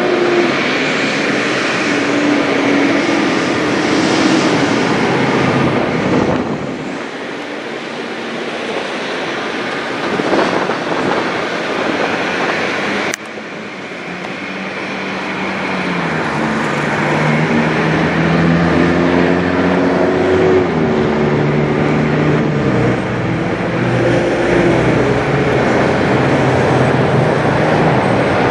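Boeing 787-9 Dreamliner's jet engines on landing approach: a steady rushing drone with engine tones that slide up and down. The level drops abruptly about halfway through, then builds steadily as the jet comes closer.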